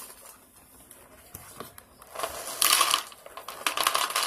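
Post Nilla Banana Pudding cereal poured from its box into a plastic bowl: a brief rustle at the start, then from about two seconds in a dense rattling patter of small dry pieces hitting the bowl.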